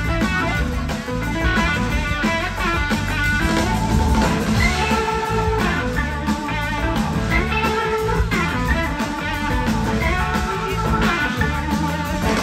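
A live blues-rock band playing, with an electric guitar line weaving over drums and percussion.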